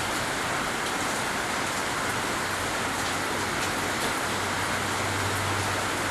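Steady, even hiss of falling water, with a low hum joining about two seconds in.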